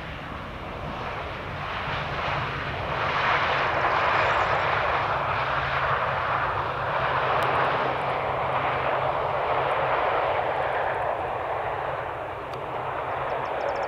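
Boeing 737-800 jet engines (CFM56-7B) with a loud rushing sound that swells about three seconds in, holds steady, and eases slightly near the end, over a steady low hum.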